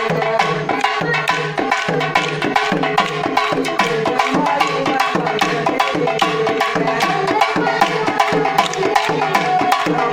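Music with a fast, even percussion beat of sharp strokes over a steady melody.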